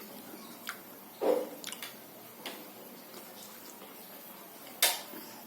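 Eating sounds: scattered small wet mouth and utensil noises, a soft knock about a second in, and a sharp click like cutlery on a plate near the end.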